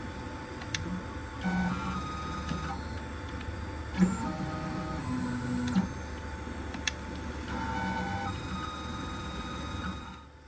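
Onefinity CNC router's stepper motors whining through a series of short moves, each held at a different steady pitch, as the machine runs its automatic touch-probe routine. A few sharp clicks come between the moves.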